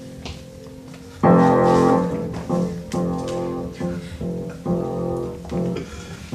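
Piano music: soft at first, then a loud chord about a second in, followed by further notes and chords struck about every half second.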